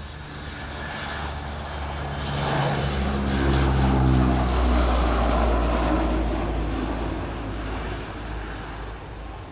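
Transall C-160D's twin Rolls-Royce Tyne turboprops at takeoff power as the transport climbs out past. The sound grows to its loudest about halfway through. The propeller drone drops in pitch as the aircraft passes, then fades as it flies away.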